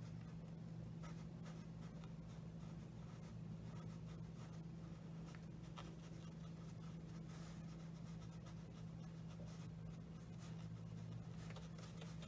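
Faint scratchy strokes of a watercolour brush working dark paint onto textured paper, over a steady low hum.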